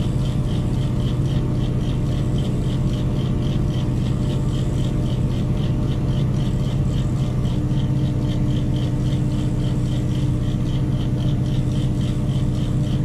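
Heavy mobile crane's diesel engine running steadily at a constant pitch, with a fast, even high ticking repeating throughout.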